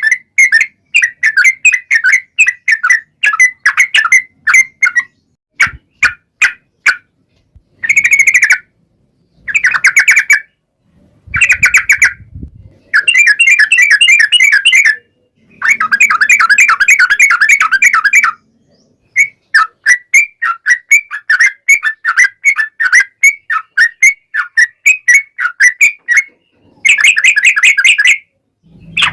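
Yellow-vented bulbul (trucukan) singing loudly and repeatedly: phrases of quick, bubbly chirping notes, some drawn out into long rapid runs ("ropel panjang"), with brief pauses between phrases.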